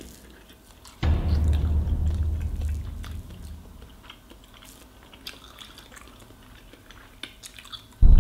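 Close-up chewing and biting of pancakes, with many small mouth clicks. About a second in, a sudden deep low rumble comes in and fades away over a couple of seconds, and another loud low sound starts just before the end.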